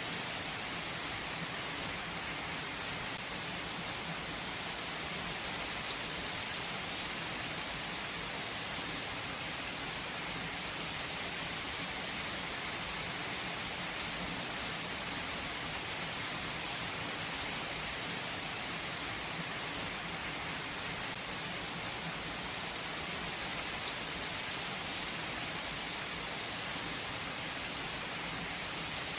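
Steady heavy rain, an even hiss of rainfall with faint scattered drop ticks.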